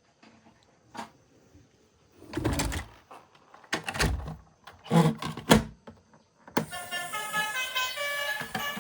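A click, then three short bouts of loud rustling handling noise. About six and a half seconds in, a steady electronic melody with several held tones begins.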